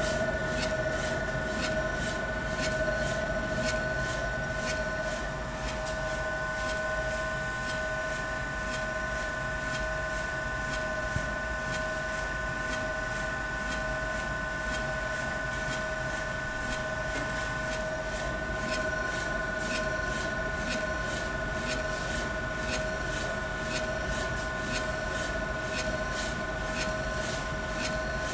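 UV flatbed printer printing on a cylinder held in its rotary attachment: a steady motor whine and hum, with sharp ticks about two a second as the printhead carriage shuttles back and forth.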